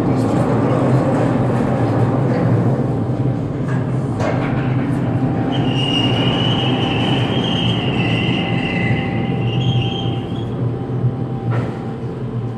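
Crematorium coffin-loading machinery running: a steady mechanical hum, with a high metallic squeal for several seconds in the middle as the coffin is drawn into the cremation unit. The sound eases off near the end as the steel door closes.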